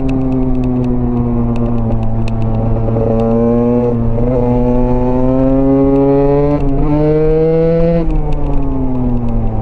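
Husqvarna enduro motorcycle engine running under way. Its pitch eases down, then climbs steadily for about five seconds with brief dips near 4 and 7 seconds, and drops away after about 8 seconds.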